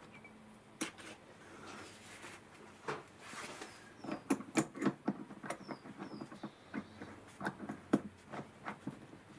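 Small steel parts clicking and scraping as a collet and its collet nut are handled and screwed onto a threaded steel collet holder. The clicks come irregularly, a few early and many in quick succession from about four seconds in.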